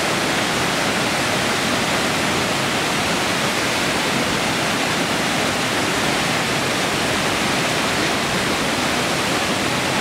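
Waterfall pouring down and splashing over a person and rocks: a loud, steady rush of falling water.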